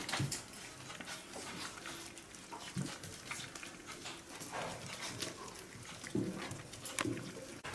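Miniature pinscher puppies squeaking in short, scattered calls while feeding on a whole rat, with small clicks of chewing and scuffling between them.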